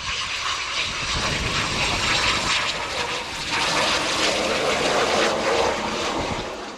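Military jet aircraft flying past, a steady broad engine noise that grows fuller in the middle tones about halfway through.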